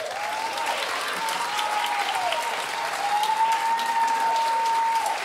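Audience applauding steadily at the end of a choir piece, with a drawn-out cheer rising and falling above the clapping and held high near the end.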